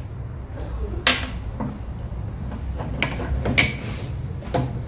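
A few scattered metal clanks and knocks from handling a steel air brake chamber clamped in a vise, the loudest about a second in and again past the middle, over a low steady hum.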